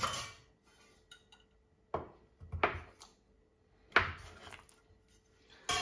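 Stainless-steel bench scraper cutting through pizza dough and knocking and scraping against the worktop: a few separate short clacks, about two, two and a half and four seconds in.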